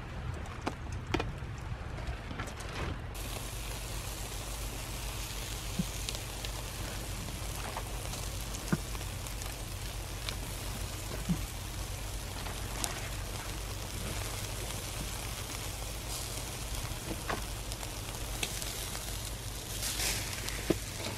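Chicken grilling in a wire grill basket over a charcoal fire, with an even sizzle and scattered crackles and pops from the coals. A steady low hum runs underneath.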